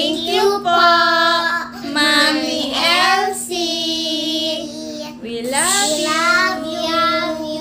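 A child singing long, drawn-out notes that slide between pitches, in several phrases with short breaks, over a steady low hum.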